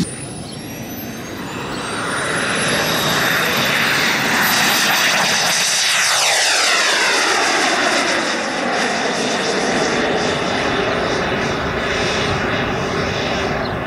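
Turbine engine of a large radio-controlled model jet running at high power through its takeoff and climb: a high whine rises in pitch over the first few seconds as the sound grows louder, then the pitch sweeps downward as the plane goes past about halfway through.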